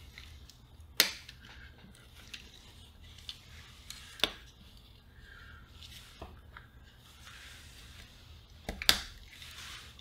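Sharp plastic clicks and taps as a new speaker in a 3D-printed adapter ring is pressed into a pocket transistor radio's plastic case, a friction fit. Three loud clicks about a second in, near the middle and near the end, with softer ticks and handling rustle between them.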